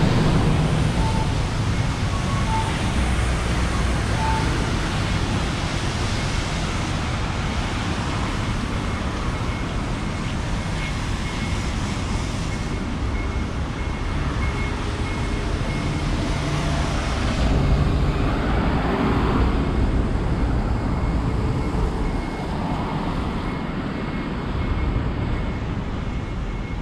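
Steady road traffic noise: a continuous mix of car and truck engines and tyres. A faint, high, short tone repeats through much of it.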